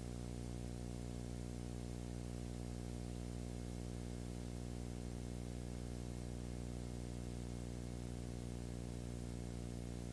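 Steady electrical hum with a buzzing edge of many overtones and a faint hiss above it, with no other sound: the bare noise of a silent home movie's transfer.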